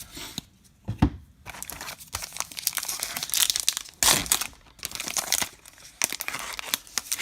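Baseball card pack wrapper crinkling and tearing as it is handled and opened, an uneven run of crackles. There is a soft knock about a second in.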